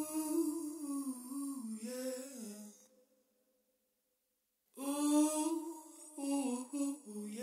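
A voice humming a wordless melody, part of a song, with a pause of about two seconds in the middle.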